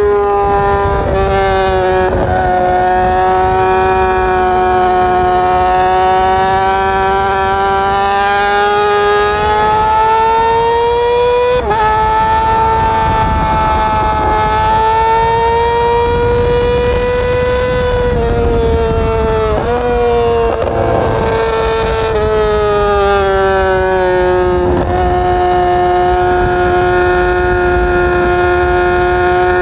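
A 2013 Yamaha R6's inline-four engine, breathing through an Akrapovic short end can, running hard at high revs under way with a high, steady note. Its pitch climbs slowly, dips sharply about 12 and 20 seconds in, and settles lower about 25 seconds in, over a steady rush of wind.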